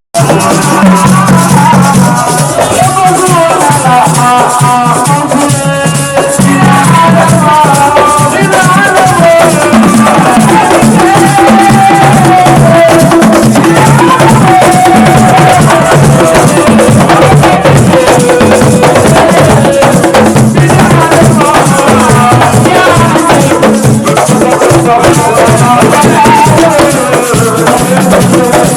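Loud music with percussion and a melodic line, running continuously.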